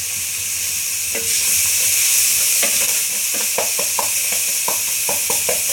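Onions and whole spices sizzling in hot oil in a pan, a steady hiss. From about two and a half seconds in, a spoon stirs and scrapes the pan in quick, clicking strokes.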